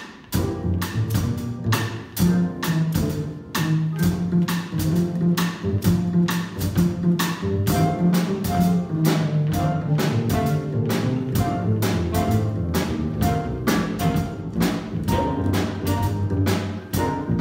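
Small jazz combo playing a blues: plucked upright double bass walking under a drum kit, with keyboard comping. About halfway through, a flute melody line comes in above the band.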